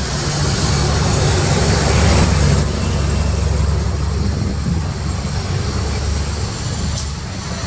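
Road traffic dominated by the low engine drone of a city bus passing close by, with tyre and traffic noise. It swells to its loudest about two seconds in and eases off after.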